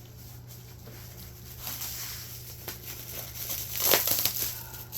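Cardboard and packing material being handled and rustled while a boxed figure is unpacked, with scattered light clicks and a louder scraping rustle about four seconds in.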